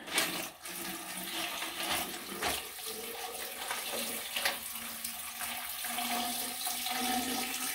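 Water poured from a glass pitcher into a tall graduated cylinder packed with ice: a steady pouring, splashing stream, with a few sharp clicks.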